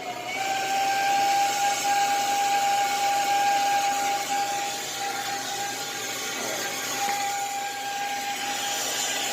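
Brazing torch flame burning with a steady hiss and a steady whistling tone through it, heating the suction-line joint to unsweat it from the compressor.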